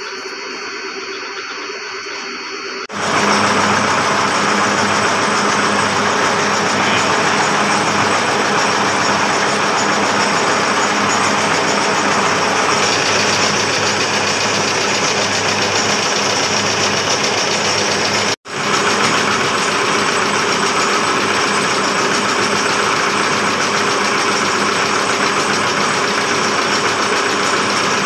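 Plastic blow-moulding machine running with a loud, steady mechanical noise and an even hum underneath. It comes in abruptly about three seconds in, after a quieter hum, and has a split-second break a little past halfway.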